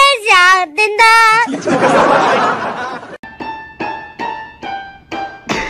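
A high, wavering sung voice for about the first second and a half, then a short stretch of noisy hiss. From about three seconds in, an electronic keyboard plays a string of single struck notes, about three a second, mostly the same note repeated, as a dog paws at the keys.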